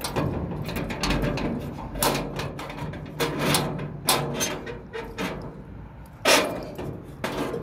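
Bunch of keys jangling and scraping at the lock of a sheet-metal gate, with irregular metallic clicks and rattles as the lock is worked.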